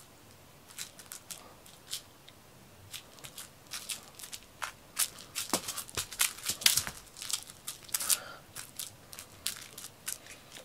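Irregular rustling, crinkling and sharp little clicks as a cat-teaser wand is flicked about and a cat pounces and scrabbles on blankets and cushions.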